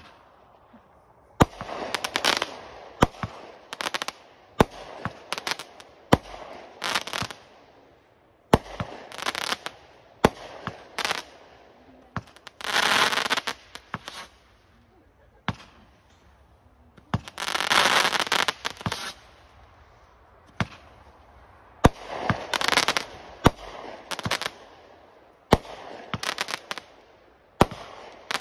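Aerial fireworks going off: a string of sharp bangs as shells burst, most followed by a second or so of crackling stars, with two longer crackles partway through.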